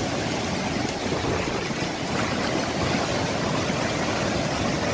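A river in flood rushing across a road: a steady, even wash of fast-moving floodwater.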